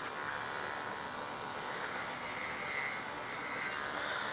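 Electric hair clippers running steadily while cutting the sides of the hair.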